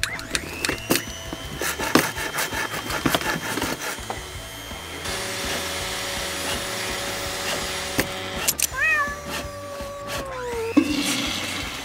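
Light metal clicks and taps as parts are fitted by hand to the front of a bare V8 engine block, then a falling squeal lasting about two seconds near the end.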